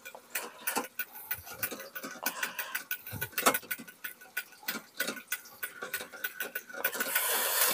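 Fishing reel being cranked to wind wet braided line onto its spool: quick, irregular ticking from the reel's mechanism, with a short hiss near the end.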